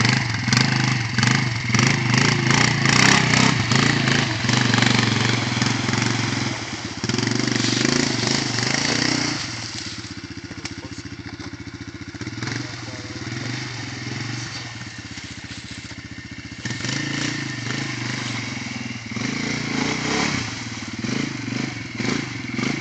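Arctic Cat DVX 250 quad's single-cylinder engine revving hard as it churns through mud and water. About ten seconds in the revs fall to a lower, steadier note for several seconds, then it revs up again unevenly.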